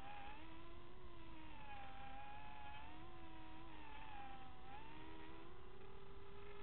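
Small drone's electric motors and propellers whining, the pitch wavering up and down with the throttle and holding higher near the end.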